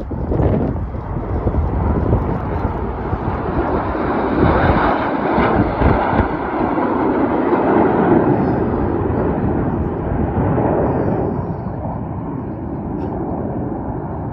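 BAE Hawk T1 jets flying past in formation, the jet noise swelling to a peak about halfway through and then fading.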